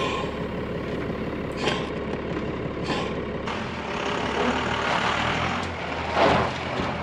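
First-generation Dodge D250's 5.9-litre Cummins inline-six turbo-diesel running steadily, with a few brief noises over it, the loudest about six seconds in.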